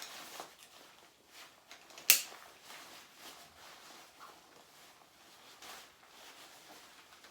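Faint rustling and handling noise, with one sharp click about two seconds in.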